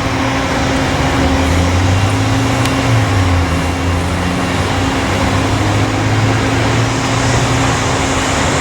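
Boeing 757 jet engines running steadily before the takeoff roll: a broad roar over a low hum, with the high hiss growing a little near the end.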